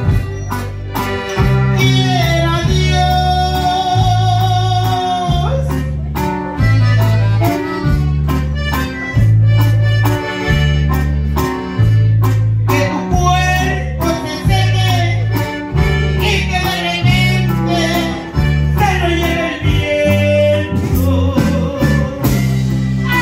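Latin music, corrido-style, with a reedy lead melody over a steady bass line that alternates between two notes about once a second, and some singing.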